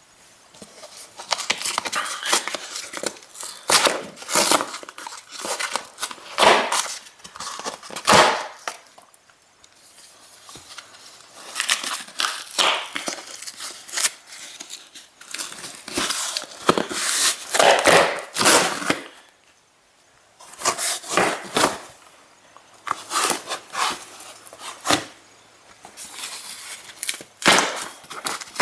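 A large cardboard shipping box being opened by hand: tape and cardboard tearing and crinkling in irregular bursts, with a few knocks.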